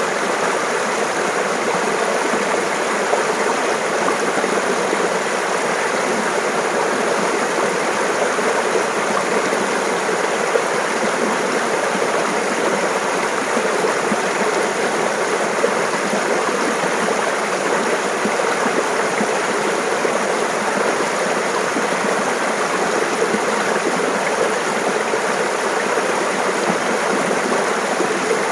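Shallow stream babbling and splashing over rocks: a steady rush of running water.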